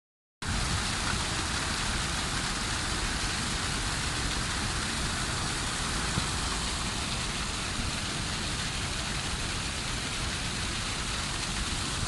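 Waterfall: water pouring over and splashing onto rocks at close range, a steady, unbroken rushing hiss.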